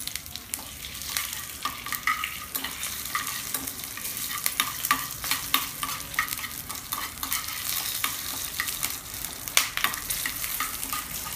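Black pepper, cumin seeds, urad dal and dry red chillies sizzling in a tablespoon of hot sesame oil in a small pan, stirred with a steel spoon, with frequent sharp clicks over a steady hiss. The spices are being fried until the urad dal turns red.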